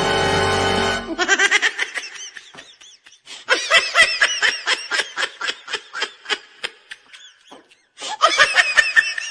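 Music cuts off about a second in. It is followed by high-pitched giggling laughter in quick short pulses, about four or five a second, in three runs with brief pauses between them.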